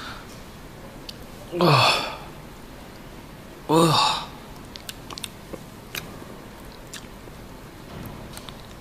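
A man's two short wordless vocal outbursts, each falling in pitch, about two seconds apart, followed by a few faint clicking mouth noises.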